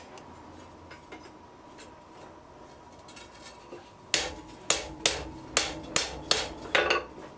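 Hand hammer striking a steel plate held in tongs, driving it down into the slot of a hot half-inch square bar on the anvil. About eight sharp blows, roughly two a second, begin about four seconds in after a quiet stretch.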